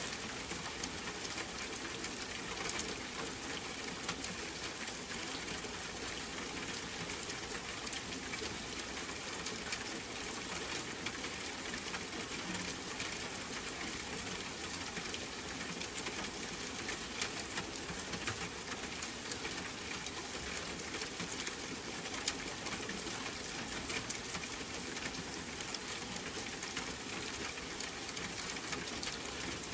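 Steady rain falling, a dense even hiss full of fine drop ticks, with a few sharper single drips standing out now and then.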